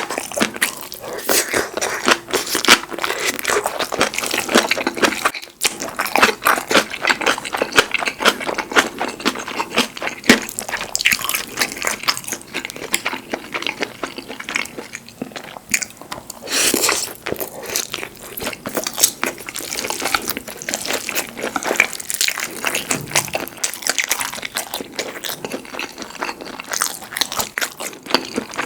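Close-miked eating: a person chewing and biting food in quick, irregular wet clicks and crunches, with a louder noisy burst about seventeen seconds in.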